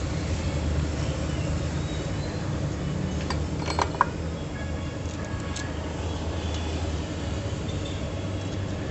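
Steady low background rumble, with a short cluster of metallic clinks about four seconds in as the steel clutch bell housing is set onto the clutch and rear pulley of a scooter's CVT drive.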